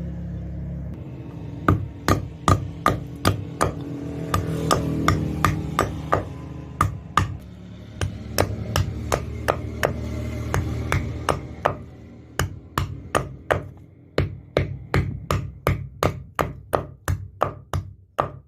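Hammer striking metal on an anvil in runs of sharp blows, about two to three a second, with two short pauses between runs. A steady low hum sits underneath.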